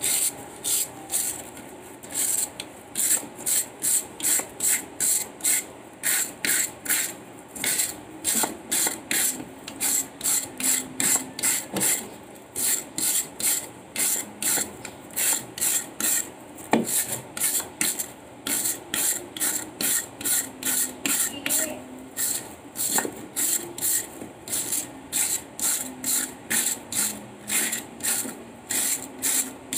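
Wire brush scraping the fibres off a husked coconut in quick, regular strokes, about two a second.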